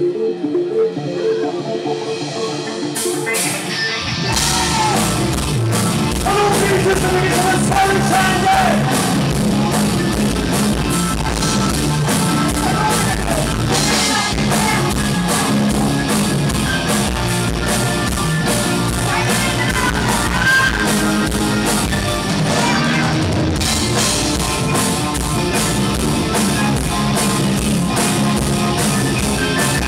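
Rock band playing live: a quiet sustained intro, then drums, bass and guitars come in together about four seconds in, with a wavering melody line over them.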